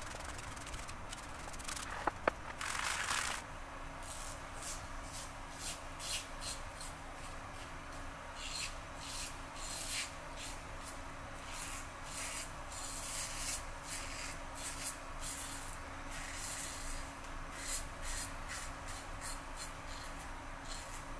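Merkur 34G double-edge safety razor scraping through lathered stubble: short rasping strokes in quick, irregular succession from about four seconds in. Before them come a single click and a brief rush.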